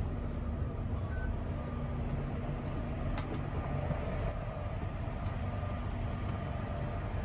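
Steady low rumble of a GO Transit coach bus's engine idling at its stop, heard from inside the cabin, with a short electronic beep about a second in.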